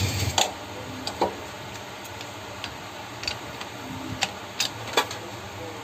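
Sharp metal clicks and clinks of a steel box spanner and clutch holding tool working the left-hand-threaded clutch centre nut of a Bajaj Discover engine as it is tightened. The clicks come singly at uneven gaps, about one a second.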